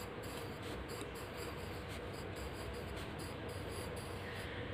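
Pencil scratching on ruled notebook paper as a word is written out in cursive, quiet and steady.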